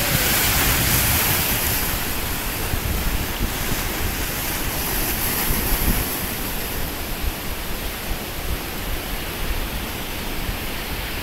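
Sea surf washing and breaking against the rocks of a jetty, with wind buffeting the microphone in low rumbling gusts; the rush eases a little after about six seconds.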